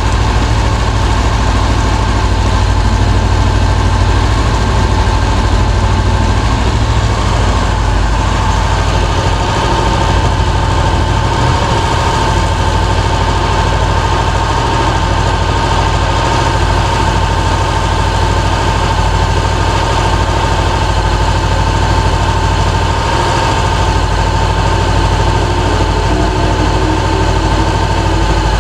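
Honda CB500X parallel-twin engine idling steadily in gear on the center stand, with the rear wheel and drive chain turning and a steady tone above the engine rumble. The chain is dry and noisy while lube is applied to it at the rear sprocket.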